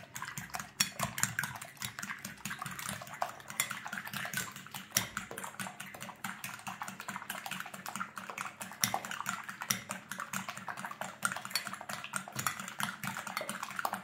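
Eggs being beaten with a fork in a glass bowl: a rapid, steady run of clicks as the fork strikes the glass.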